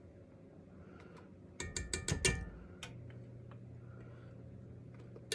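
Kitchen utensils clicking and clinking in a quick run of sharp knocks with a brief metallic ring, about a second and a half in. More clicks come near the end, and a faint steady hum starts about three seconds in.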